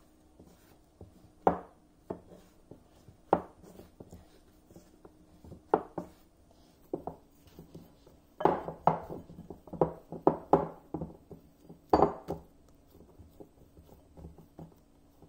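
Hands kneading a soft flour-and-water dough in a glass bowl: irregular thuds and slaps as the dough is pressed and turned against the bowl, coming thicker and faster a little past the middle.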